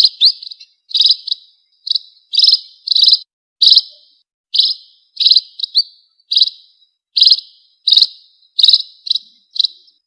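Munia lure recording: short, high chirps, some in quick pairs, repeated about every two-thirds of a second. It is a bird-trapper's lure call for attracting wild munias.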